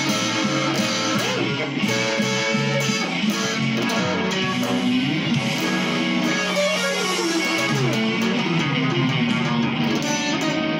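Electric guitar playing a slow blues lead, with bent notes sliding up and down in pitch.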